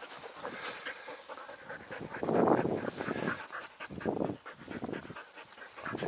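Young dogs in pulling harnesses panting hard in rough bursts as they lunge and strain at the gangline, eager to run.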